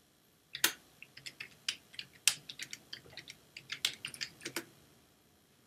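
Computer keyboard being typed on: a quick, irregular run of key clicks that stops about a second before the end.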